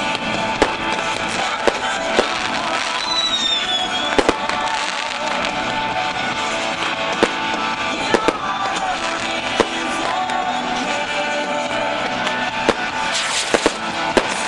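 Aerial fireworks going off in sharp bangs at irregular intervals, several in quick pairs, over steady background music.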